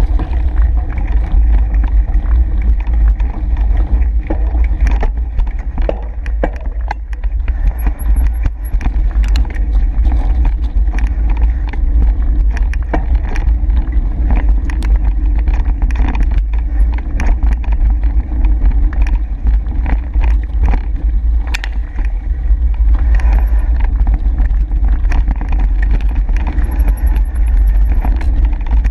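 Mountain bike riding over a dirt singletrack: a steady low rumble of wind and trail vibration on the camera microphone, with frequent sharp clicks and rattles from the bike and tyres over bumps and stones.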